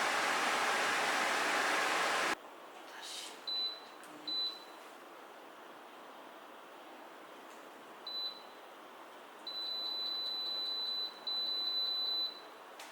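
A portable air conditioner's fan blowing hard stops abruptly about two seconds in. Then the unit's control panel beeps at button presses: a few single high beeps, then a long fast string of beeps near the end as the timer is set.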